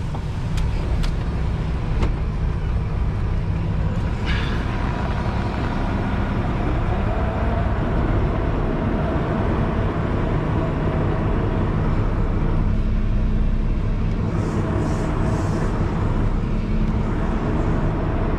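Semi truck's diesel engine running steadily at low speed while the tractor-trailer is backed into a parking spot. A few light clicks come in the first couple of seconds, and short high bursts of noise about fifteen seconds in.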